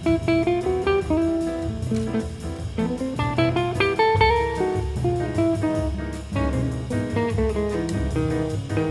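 Instrumental background music: a plucked guitar melody over a steady beat.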